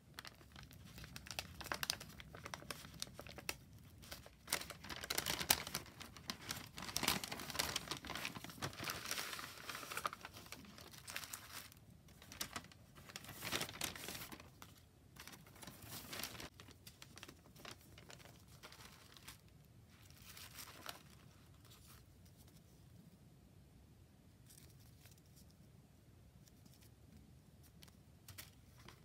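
Tissue paper and paper packaging crinkling and rustling as it is handled, in a close, dense run of crackles for the first half. A few scattered rustles follow, then it goes quiet for the last several seconds.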